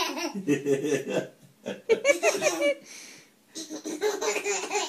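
Laughter in repeated bursts, with a short lull about three seconds in.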